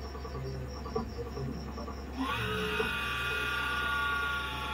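Hot air rework station switching on about two seconds in: a rush of air with a whine that rises and then holds steady, as the nozzle is brought in to heat the board and desolder a diode from the backlight circuit. A low electrical hum runs underneath.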